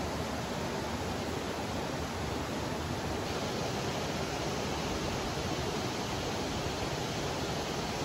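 Shallow stream running over rocks and stones: a steady, even rush of water.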